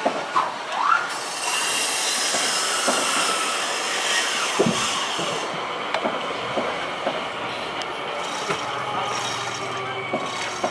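Steel launching cradle and slipway rails squealing and clanking under a fishing boat's hull as it is moved on the rails by cable winch, with several drawn-out metal squeals and sharp clanks over a steady grinding hiss.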